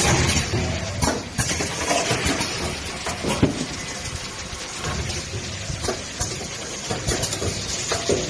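Orange-peeling machine running, with a steady noisy hum and irregular clattering clicks and knocks.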